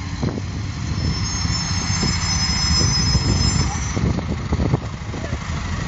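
City street traffic: cars passing close by with a steady rumble of engines and tyres. A thin high squeal sounds for about three seconds, starting about a second in.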